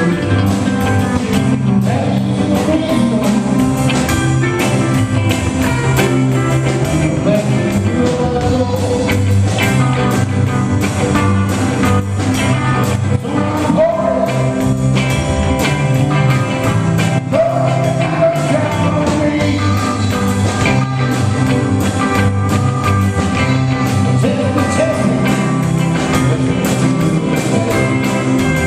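Live rock band playing: electric guitars and a drum kit keeping a steady beat, with a man singing lead.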